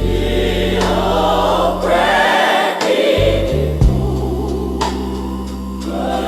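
Gospel choir singing with instrumental accompaniment over sustained bass notes.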